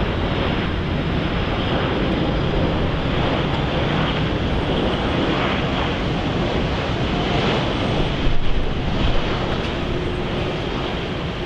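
Steady rushing roar of a jet airliner at the airport, mixed with wind buffeting the microphone, with a few louder gusts about eight seconds in.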